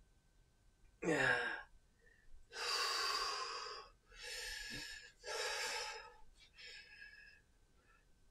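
A man breathing hard from clubbell exercise: a short falling vocal sigh about a second in, then four loud breaths in and out.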